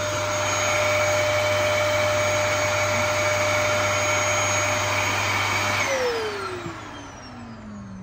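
Dyson cylinder vacuum cleaner running with a steady whine, then switched off about six seconds in, its motor winding down in a falling whine.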